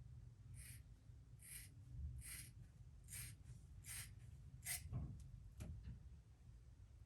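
Six short, sharp sniffs or quick inhalations, about one every 0.8 seconds, then two short falling vocal sounds: breath catching as a sneeze builds.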